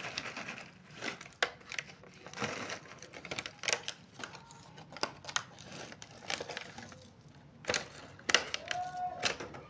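A clear plastic clamshell box crackling and clicking as it is handled and opened, with cellophane-wrapped hard candies rattling inside and spilling out. It is an irregular run of sharp clicks and crinkles, loudest a little after eight seconds.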